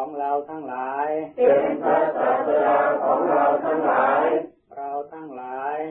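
Buddhist devotional chanting in call-and-response: a single voice leads a phrase, then a congregation repeats it in unison, louder and fuller, about a second and a half in, and a new lead phrase begins near the end.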